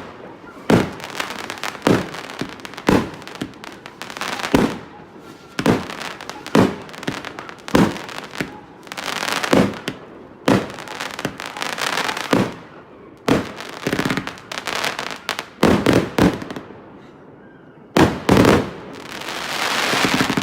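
A 30 mm consumer firework cake firing shot after shot, sharp bangs about once a second, with crackling bursts trailing some of them.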